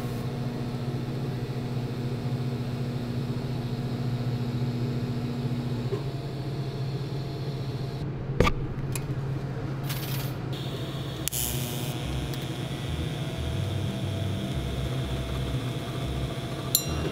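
TIG welding: the welding machine humming steadily while the arc buzzes and hisses as tacks are laid on stainless steel tube. One sharp click about eight seconds in.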